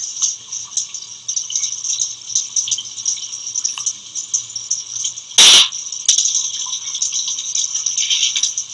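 Shower running behind a shower curtain: a steady, splashing hiss of water spray. A short, loud burst of noise lasting about half a second cuts in about five and a half seconds in.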